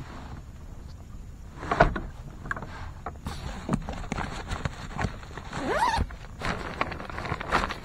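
Clicks, knocks and rattles of gear being handled against a plastic kayak, with a sharp knock about two seconds in and a short rising squeak about six seconds in.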